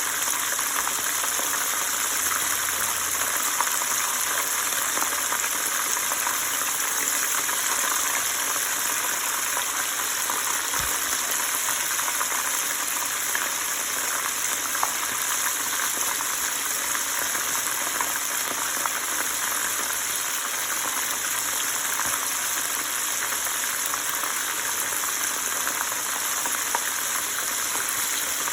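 Flour-and-cornstarch-coated chicken and shrimp frying in vegetable oil: a steady sizzle with fine crackling throughout.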